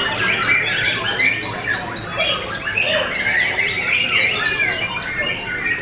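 White-rumped shamas (murai batu) singing, a dense run of overlapping quick whistles and chattering phrases.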